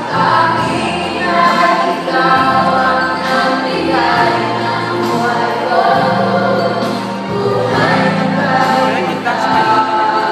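A children's choir and adult soloists singing a song together through microphones, with instrumental accompaniment and a low bass line that steps to a new note every second or two.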